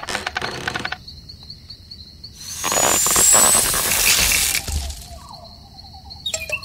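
Sound effects for a stop-motion animation. A rapid high chirring like crickets runs under it, with rattling clicks at the start. About two and a half seconds in comes the loudest part, a loud rushing noise with a rising whistle that swells and fades over about two seconds.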